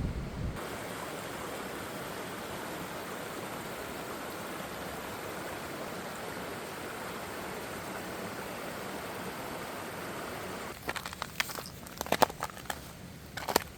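Mountain stream flowing as a steady rush of water. About eleven seconds in it cuts off and gives way to irregular crunching footsteps.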